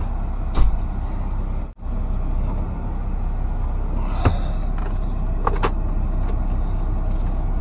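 Steady low rumble inside the cab of a Kenworth T680 semi truck idling, with a few light clicks and knocks from handling the radio and cables.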